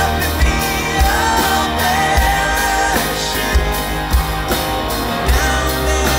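Live rock band performing: the lead singer sings over electric guitars and a steady drum-kit beat, loud as heard from the front of the crowd.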